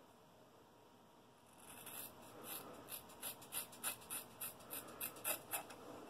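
Scissors snipping through a lock of hair as bangs are cut: a quick run of about a dozen crisp snips, roughly three a second, starting a couple of seconds in.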